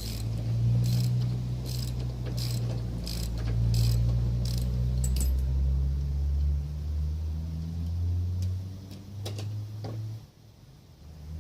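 Low mechanical hum from a running machine, with a sharp click about every 0.7 s for the first five seconds; the hum cuts off about ten seconds in.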